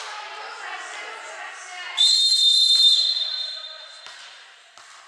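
Volleyball referee's whistle blown once, a long steady high blast of about a second that starts about two seconds in and then dies away. Before it, voices echo in the hall along with a few ball bounces.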